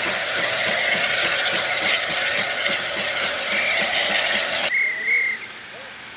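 Southern Railway Q class 0-6-0 steam locomotive hissing steam steadily; the hiss cuts off suddenly about two-thirds through, followed by a short, high, wavering whistle toot.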